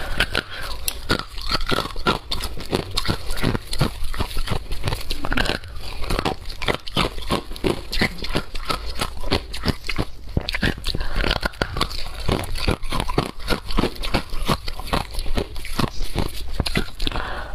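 Hard ice being bitten and chewed: a steady run of close, crisp crunches, several a second.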